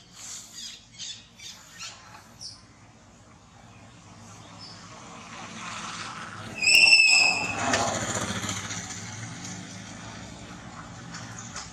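A run of short high squeaks, likely a baby monkey's calls, in the first couple of seconds, then a vehicle passing that grows louder and fades away, with a loud, high squeal lasting about half a second as it passes.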